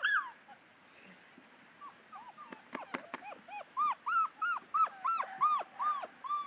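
Seven-week-old puppies whimpering and yipping in short, arched cries, a few at first and then about two a second from halfway through. A few sharp clicks near the middle.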